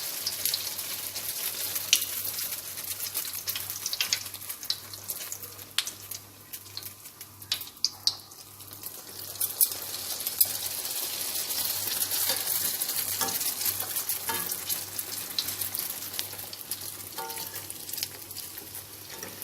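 Yeast-dough beignet balls frying in hot oil, a steady sizzle with dense fine crackling. The sizzle dips quieter about a third of the way through and fills out again just past halfway.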